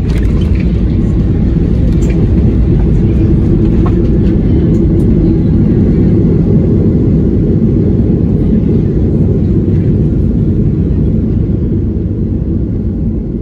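Steady low rumble of an airliner heard from inside the cabin, easing slightly near the end, with a few faint clicks in the first few seconds.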